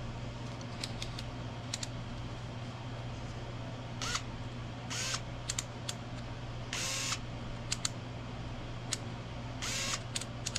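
Small electric screwdriver motor whirring in short bursts, four times, each well under half a second. A few light clicks come before the first burst.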